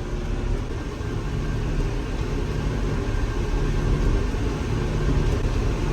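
Tractor engine running steadily under load as it pulls a large square baler through wheat straw, heard from inside the cab as a constant low rumble.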